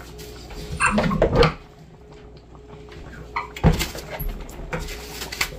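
Kitchen clatter: dishes or utensils knock a few times in the second half, over a faint steady hum. There is a brief vocal cry about a second in.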